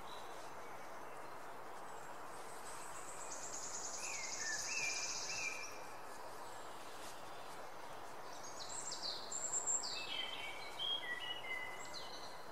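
Outdoor background hiss with small birds singing: a high, rapid trill with a few lower notes about two seconds in, then a run of short whistled notes, some falling in pitch, about eight to twelve seconds in.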